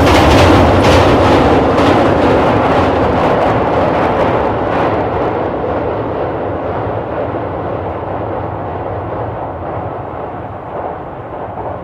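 Train crossing a steel truss railway bridge. The wheels clack over the rail joints for about the first five seconds, then the rumble fades steadily as the train moves away.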